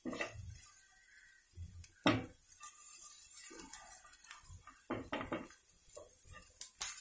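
Spatula stirring fried sweet corn kernels in a non-stick frying pan: scattered scrapes and knocks of the spatula against the pan, the loudest about two seconds in and a pair around five seconds in.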